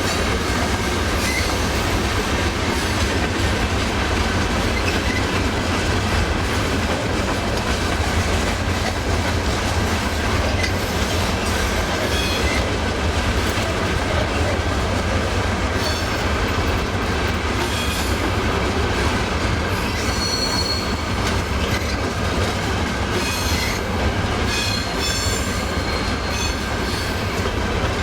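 A train rolling past on steel rails with a steady rumble and the clickety-clack of wheels over rail joints, with brief high wheel squeals now and then, mostly in the second half.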